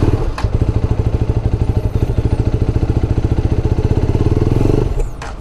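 KTM motorcycle's electric starter cranking the engine on a third attempt, a fast even chugging that stops abruptly after about five seconds without the engine catching. The riders wonder whether the bike getting wet is behind the hard starting.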